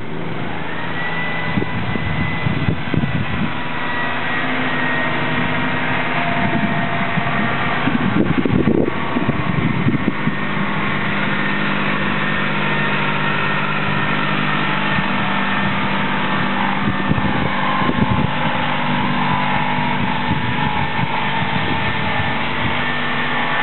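Southport Pier electric tram running along the pier track: a steady motor hum with a high whine that rises about a second in and then holds, over the rumble of the running gear.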